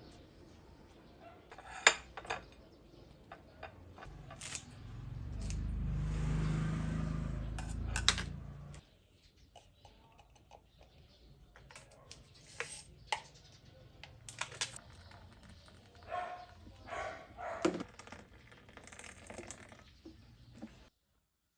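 Objects being handled: scattered clicks and knocks, with a steady low hum that starts about five seconds in and stops about four seconds later.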